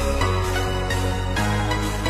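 Background music: electronic music with sustained chords over a steady bass line that changes note about every half second.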